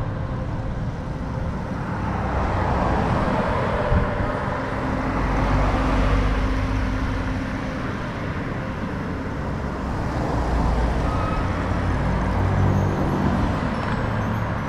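Road traffic: motor vehicle engines and tyres going by close at hand in heavy traffic, swelling twice as vehicles pass.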